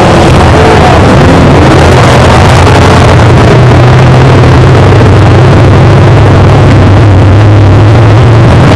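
Dirt-track modified race car's V8 engine running steadily at low revs with the car stopped, heard very loud from inside the cockpit.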